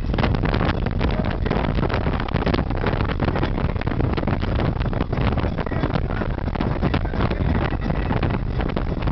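Wind rushing over the microphone and road rumble from a moving car, a steady loud noise heaviest in the low end.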